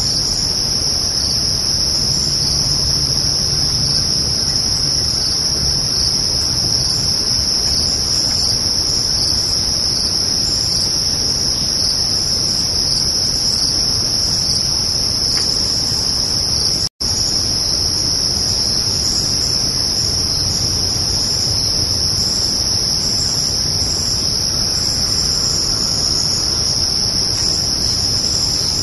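Crickets trilling in a dense, steady night chorus of continuous high-pitched chirping. It cuts out for a split second about halfway through.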